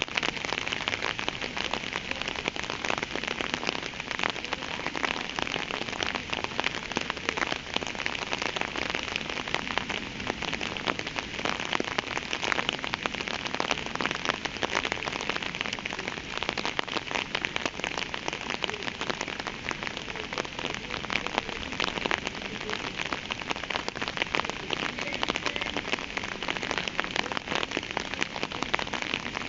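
Steady rain falling, an even, dense patter of many small drops.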